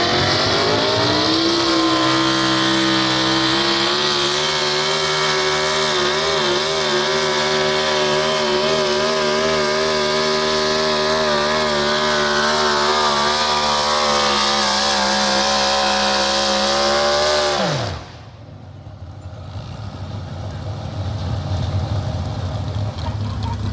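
Supercharged engine of a Pro Stock 4x4 pulling truck revving up over the first second or two, then held at high revs under load as it drags the sled. About eighteen seconds in the revs drop off sharply, leaving a much quieter low rumble.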